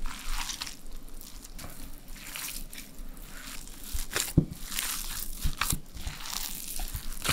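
Hands kneading ground beef mixed with grated onion and spices in a bowl, making irregular soft squishing noises with a few sharper clicks.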